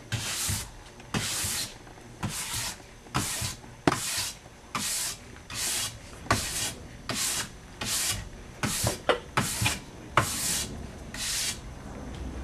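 Stiff nylon brush stroked tip to tail along an alpine race ski's waxed base, a dry scratchy swipe a little more than once a second, working the leftover wax out of the base structure after scraping.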